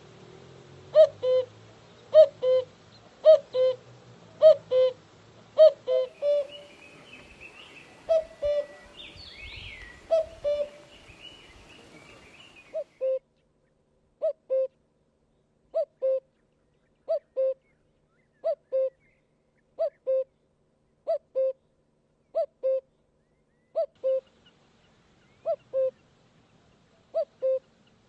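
Cuckoo calling its two-note 'cu-ckoo', a higher note dropping to a lower one, repeated steadily about once a second. Another bird chirps briefly partway through.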